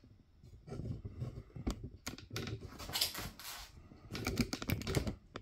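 Hands twisting and working a rubber handlebar grip on a bike handlebar: irregular clicks, taps and short rubbing scrapes, in clusters.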